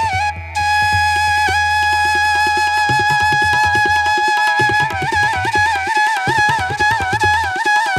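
Background instrumental music: a long-held melody line with bending, ornamented notes over a low sustained bass and a steady drum beat.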